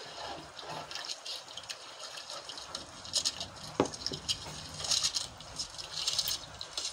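Water splashing and sloshing as a white plastic pipe is driven down into the sea again and again from the bow of a small outrigger boat, to scare fish toward the nets. There is a short pitched bloop a little past halfway, and the splashes grow louder in the second half.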